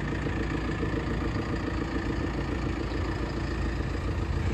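Diesel engine of a JCB 3CX14 Super backhoe idling steadily.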